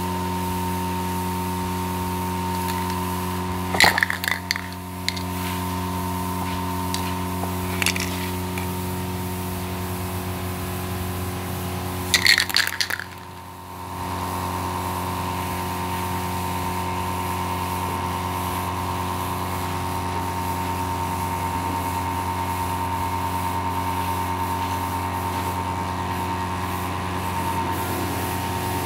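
Aerosol spray-paint can rattling and clinking in short bursts, about four seconds in, faintly near eight seconds, and again around twelve seconds. Underneath is a steady hum with several held tones.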